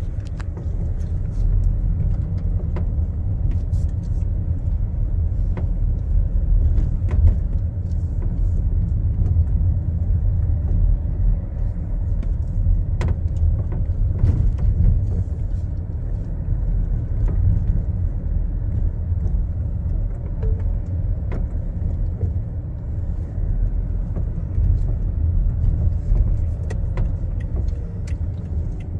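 Steady low rumble of a car in motion, road and engine noise heard from inside the cabin, with a few light ticks and rattles.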